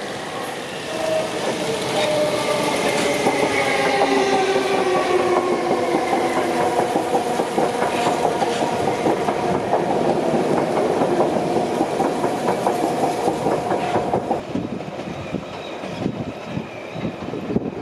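South Western Railway suburban electric multiple unit passing close by: a whine of several tones that slowly falls in pitch, over wheel rumble and clatter from rail joints and points. About fourteen seconds in it cuts off suddenly, leaving quieter, more distant rail noise.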